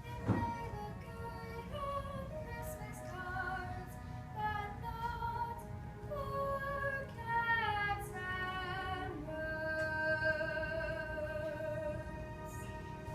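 A young girl singing a solo musical-theatre song with musical accompaniment, holding a long note in the last few seconds.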